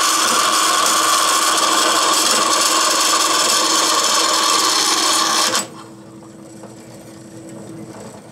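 Vertical bandsaw blade cutting through a metal plate, a loud steady rasping with a whine running under it. The cutting noise stops abruptly about five and a half seconds in as the blade comes out of the cut, leaving a faint hum.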